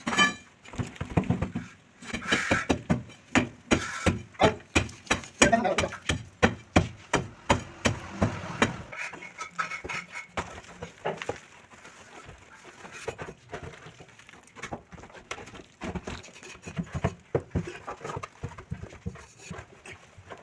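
Hammering on a building site: a quick series of sharp knocks for about the first nine seconds, then scattered knocks, with voices in between.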